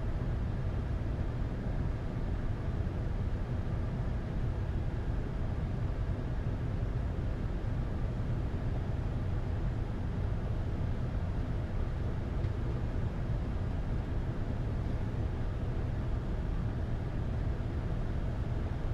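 Steady low rumble of airflow and engines heard inside a Boeing 747-8 flight deck on final approach, with the landing gear down and flaps at 25. It is an even noise with no changes.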